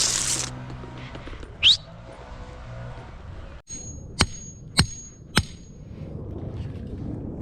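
Three sharp hammer strikes about half a second apart, each with a brief ring. Before them comes a short rising squeak over a steady low hum.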